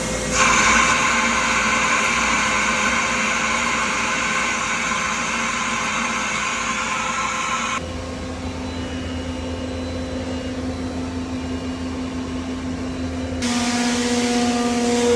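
CNC machine running with steady tones that change abruptly twice: a bright hissing whine for about seven seconds, a lower hum, then a brighter whine with several tones near the end.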